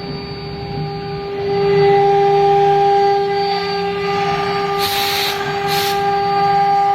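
CNC router spindle running with a steady high whine, growing louder about a second and a half in as it works, with two short hissing bursts near the end.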